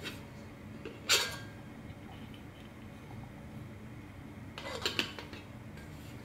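Titanium pot and its metal lid clinking together as they are handled: one sharp, ringing clink about a second in, then a quick cluster of lighter clinks around five seconds in.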